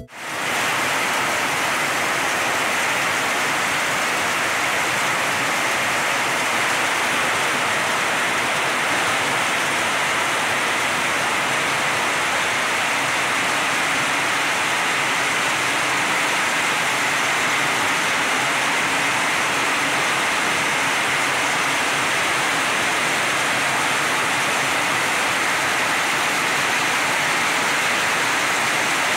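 Steady rain, an even hiss of falling water that holds at one level throughout.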